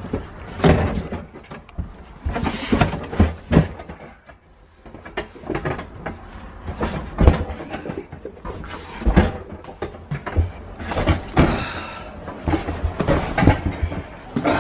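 Irregular thumps and knocks of a large cardboard box being carried down carpeted stairs, with footsteps on the treads and the box bumping against steps and walls, and a short lull about four seconds in.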